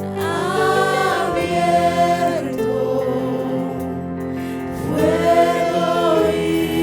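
Christian worship music: voices singing two long, drawn-out phrases over sustained keyboard chords.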